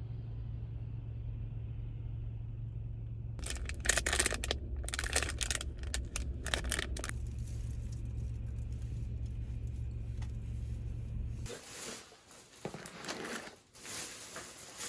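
A steady low hum with bursts of crinkling and rustling over it; the hum cuts off suddenly about three-quarters of the way through, leaving more rustling.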